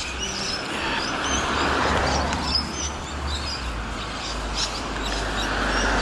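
Vehicles passing on a street, their tyre noise swelling and fading twice, about two seconds in and again near the end, over a low rumble, with small birds chirping.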